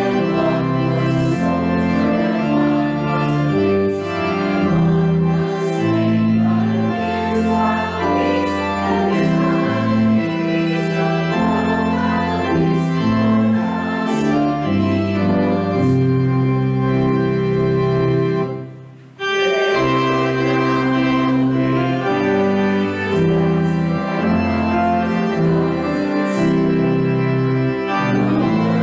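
Church organ playing a hymn in slow, sustained chords, stopping briefly about two-thirds of the way through before carrying on.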